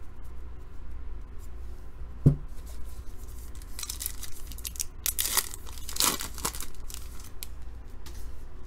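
Crimped plastic wrapper of a baseball card pack being torn open and crinkled, in a series of rasping rips about four to six and a half seconds in. It follows a single thump a couple of seconds in.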